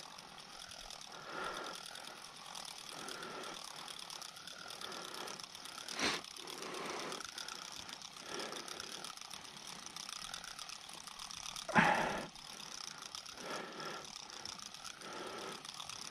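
Spinning reel being cranked with a soft, steady whirring tick, reeling in line after a bite. There is a sharp click about six seconds in and a brief, louder rustling knock near twelve seconds.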